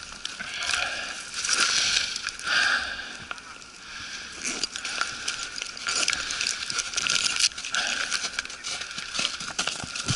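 Rustling and crunching of a person moving on foot, with clothing and gear rubbing close to the microphone and many irregular small crackles and clicks.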